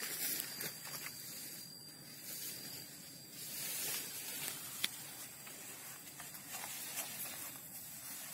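Steady outdoor background hiss, with a few faint ticks and one sharper click about five seconds in.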